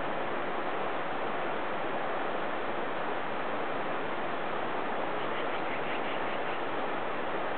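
Steady, even rushing noise with no distinct events, and a faint quick run of high ticks about five seconds in.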